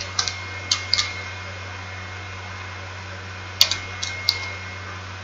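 Computer keyboard keystrokes: a few sharp clicks about the first second, then another short run of clicks a little past halfway, over a steady low electrical hum.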